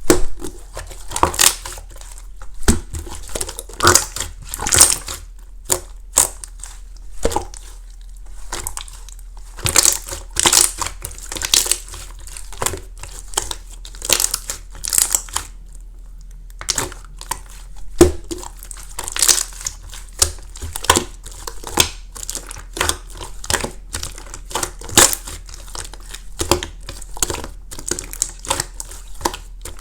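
Clear flake slime being played with by hand: irregular crinkly crackles and sharp little pops, some in quick clusters, with short pauses between.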